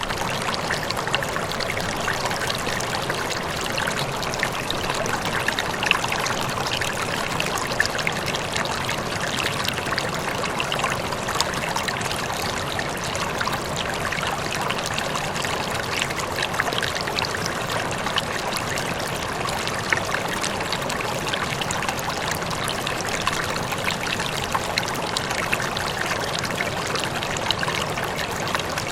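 Running water flowing steadily: a continuous rush of water with many small splashes and trickles.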